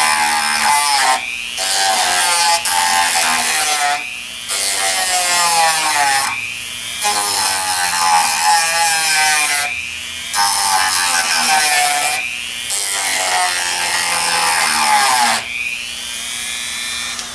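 Dremel rotary tool grinding the mushroomed end of a metal bolt, tapering it to clean up the damaged threads. The motor's pitch sags under load and climbs again each time the bit is eased off, about every two to three seconds. Near the end the grinding stops and the tool runs on unloaded.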